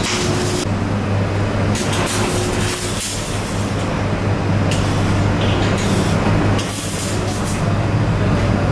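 MIG/MAG wire-feed welding arcs crackling and sizzling as several welders work at once, the hiss starting and stopping every second or so as arcs strike and break, over a steady hum from the welding machines.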